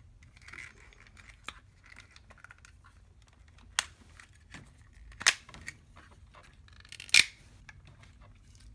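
Hard plastic parts of an Optimus Primal action figure clicking and snapping as they are turned and bent into place by hand, with many light clicks and three loud sharp clicks in the second half.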